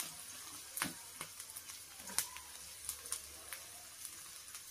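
Diced onions and capsicum frying in a little hot oil in a nonstick pan: a faint steady sizzle with scattered crackles and pops.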